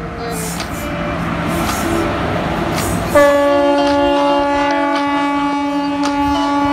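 A passing train, its noise swelling for about three seconds, then the locomotive horn sounds one long, steady blast that holds to the end.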